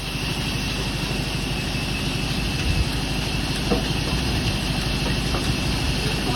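Woodworking machinery running steadily, a continuous motor hum with a fast low pulse.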